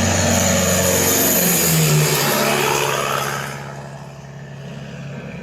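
A recorded car engine sound played through the boombox's speakers and subwoofers: low steady engine tones whose pitch bends up and then down about two seconds in, with a wide hiss above. It fades about three and a half seconds in.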